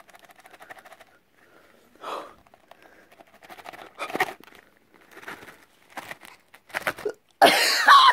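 A package being opened by hand: crinkling, scraping and tearing of the wrapping in short, scattered bursts that grow louder. A loud rasping burst comes near the end.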